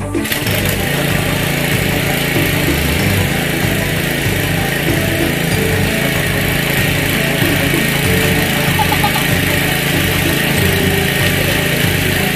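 Small engine of a well pump running steadily, with an even, unbroken chug.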